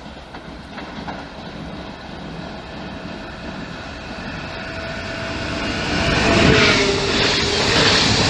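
Electric multiple-unit passenger train approaching and passing at speed, its wheel and rail noise growing louder until it rushes past about six seconds in, with a steady whine over the rush.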